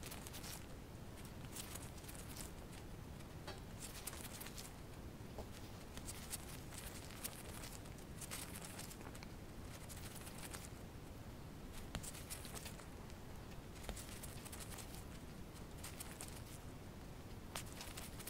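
Faint, scattered scratchy rustling of a small knife slicing through a red squirrel's skin and fur, with gloved hands handling the carcass.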